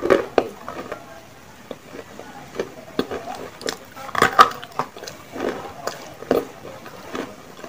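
Close-up mouth eating sounds: biting and chewing a white chalky substance, with irregular crunches, clicks and wet lip smacks, the loudest about four seconds in.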